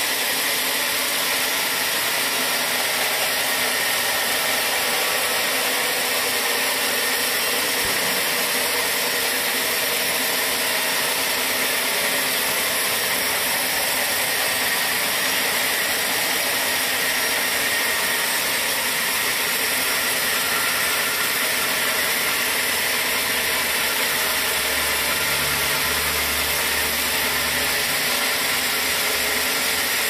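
Band sawmill running steadily, its blade sawing through a large trembesi log with an even, high-pitched rushing noise. A low hum comes in for a few seconds near the end.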